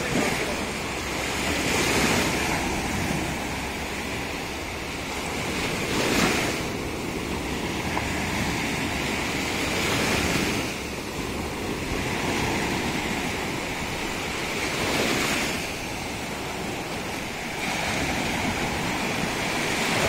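Surf breaking on a sandy shore, the wash swelling and ebbing about every four seconds.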